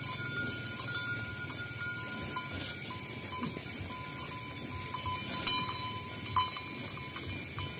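Cowbells on cattle clanking irregularly, with a louder clank about five and a half seconds in.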